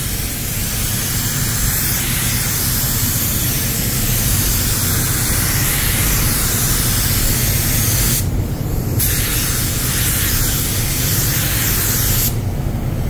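Air spray gun (Walcom Slim X Light, 1.3 mm tip) spraying clear varnish: a steady hiss of atomising air and paint. The trigger is released briefly about eight seconds in and again near the end.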